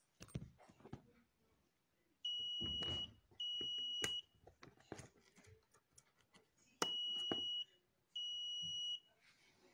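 Homemade PDK4 long-range locator circuit sounding high-pitched steady beeps: four tones of just under a second each, in two pairs, with clicks and rustles from handling the wiring between them.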